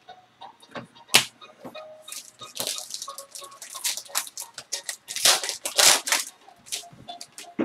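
Foil trading-card pack wrapper crinkling and tearing as it is opened, among clicks and rustles of cards and a plastic card holder being handled; a sharp click about a second in is the loudest single sound.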